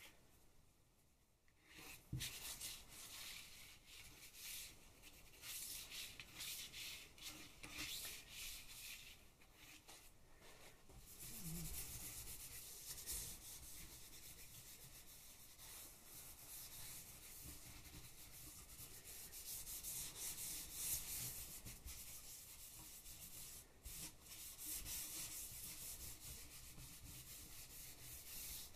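A small pad rubbed back and forth over a sheet of printed paper: a steady, faint scratchy rubbing that starts about two seconds in and goes on without pause.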